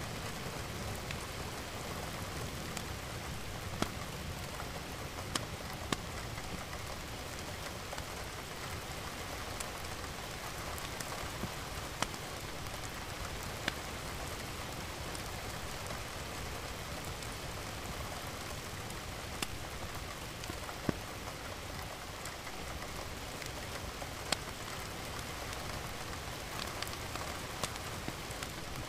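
Steady rain falling, with a sharp drop tapping a surface every few seconds.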